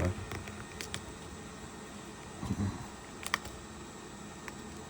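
A few light clicks of small parts inside an opened smartphone being pried at while a screwed-down internal plate is worked loose, over a steady low hiss, with a brief low murmur about halfway through.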